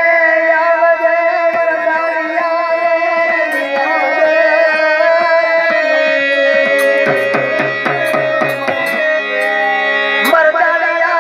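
Gujarati dakla folk music: a voice singing over held chords, with hand-drum strokes that become denser in the second half.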